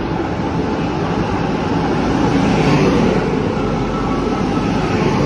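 Taiwan Railway push-pull Tze-Chiang express train (E1000 series) arriving at a platform, its electric power car running close past with steady wheel and running-gear noise, loudest about two to three seconds in as it draws level.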